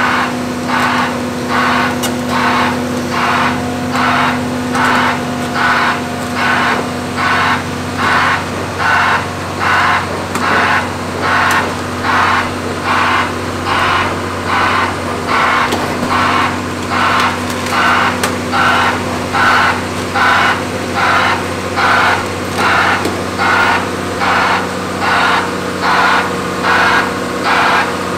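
Heavy diesel construction machinery running steadily, with a broadband reversing alarm giving short hiss-like pulses about once a second.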